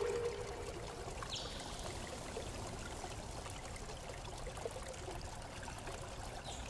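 Steady hiss-like rushing noise, like running water. A ringing tone fades out in the first second, and a faint short whoosh comes about 1.4 s in.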